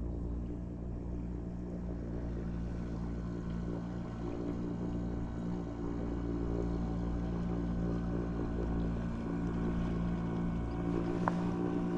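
Motorboat engine running steadily, a constant hum that grows slightly louder toward the end, with one brief click near the end.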